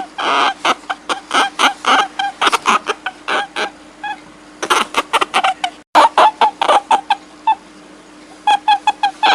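A rapid series of short, pitched animal calls, several a second, over a steady low hum, broken off briefly near the middle.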